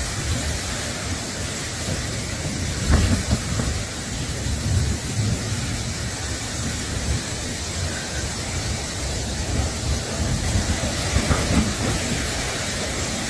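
Steady rushing wind noise with uneven low rumbling from wind buffeting the microphone.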